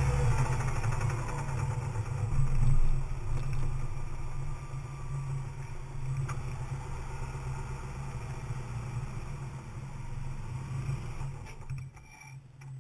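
2004 Subaru Liberty/Legacy EJ25 2.5-litre flat-four engine running steadily at low revs. Its sound drops away near the end.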